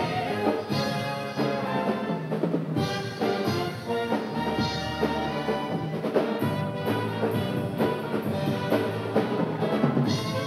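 Instrumental band music led by brass, with drums and percussion, playing under a show choir's dance section; no singing.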